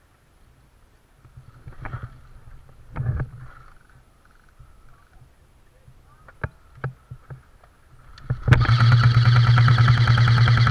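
Scattered light clicks and knocks, then about eight and a half seconds in a loud, rapid, buzzing full-auto burst from an airsoft electric gun, lasting about two and a half seconds.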